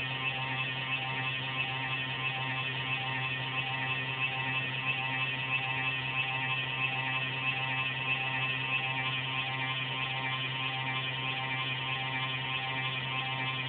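Desktop computer giving off a steady, pulsating whirr with a hum and many layered tones, which the owner suspects comes from a fan. The computer's performance is not affected.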